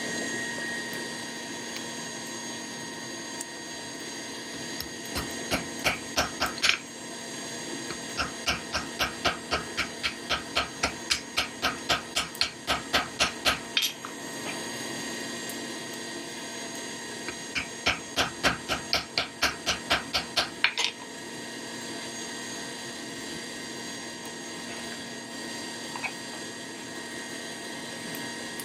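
Forging hammer blows on hot steel held in tongs, in three runs of evenly spaced strikes of about three a second, over a steady background hum.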